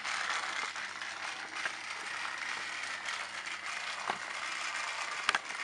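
Battery-powered Trackmaster Thomas toy engine running along its plastic track, its small motor and gearbox whirring steadily, with a couple of sharp clicks about four and five seconds in.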